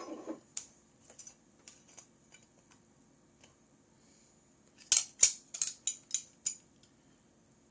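Small hard phone parts being handled on a work surface: scattered light clicks and taps, then a quick run of louder sharp clicks a little past the middle.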